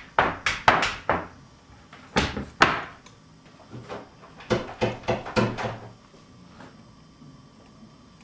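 A run of sharp knocks and bangs in three bursts: about five quick ones at the start, two heavier ones a little over two seconds in, then six or so more between about four and six seconds in.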